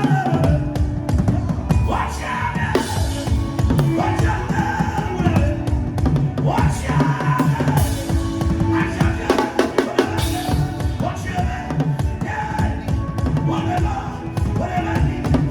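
Fast, dense drumming on a drum kit, with bass drum strokes under a continuous run of hits and no breaks.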